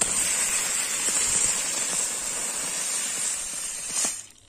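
Chakri ground spinner fireworks spinning and spitting sparks: a steady, loud, high hiss that swells briefly and then cuts off about four seconds in as they burn out.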